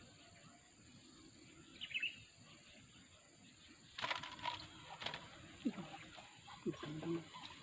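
Quiet outdoor ambience with one short bird chirp about two seconds in, then from about four seconds in a few sharp splashes as a freshly hooked lembat catfish is pulled through the water.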